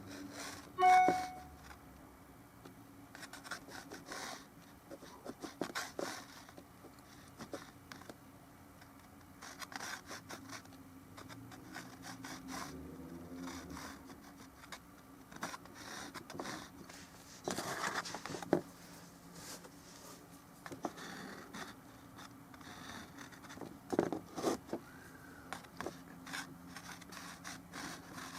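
Brush strokes scraping and rubbing on canvas and palette in short, irregular strokes over a low steady hum. About a second in, a brief ringing tone sounds once, the loudest moment.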